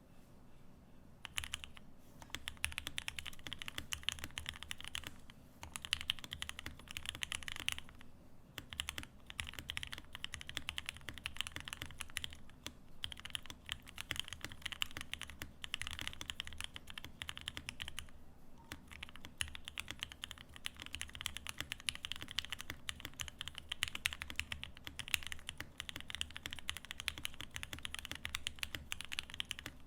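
Fast, steady typing on a custom Paraluman mechanical keyboard fitted with lubed Gateron Ink v2 linear switches, an aluminium plate, an O-ring mount and CRP keycaps. The typing breaks off for a moment a few times.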